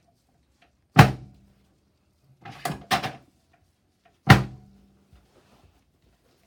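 Chiropractic treatment table thudding during a hip adjustment for restricted internal rotation. There are two loud thuds about three seconds apart, each with a short low ring after it, and a quicker pair of knocks between them.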